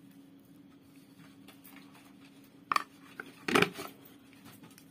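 A metal spoon knocking against a stainless steel mixing bowl: one sharp ringing clink a little past halfway, then a louder cluster of clatters a moment later. A faint steady hum runs underneath.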